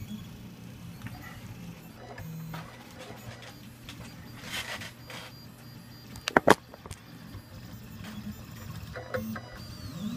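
Reach 3D printer running a PLA print: its stepper motors whine in short tones that jump from pitch to pitch as the print head moves. A quick cluster of sharp, loud clicks comes about six and a half seconds in.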